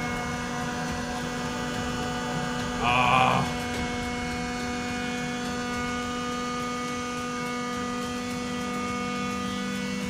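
Silvercrest cordless wet/dry hand vacuum running steadily while sucking up a puddle of water from a tiled floor, a steady motor hum with a brief louder burst about three seconds in.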